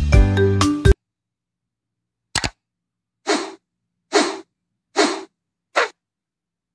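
Short electronic jingle of an end-screen animation that cuts off about a second in, followed by a click and then four short noisy sound effects about a second apart.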